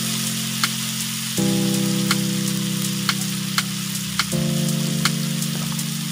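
Onions and curry leaves sizzling in hot oil in a steel wok, with sharp pops every half second to second. Background music of slow held chords that change every few seconds.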